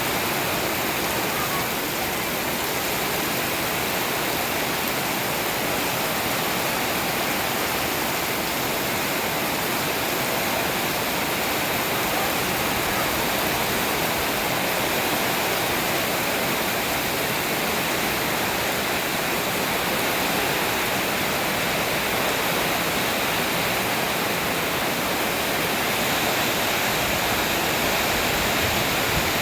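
Heavy rain pouring down, a loud, even hiss that does not let up.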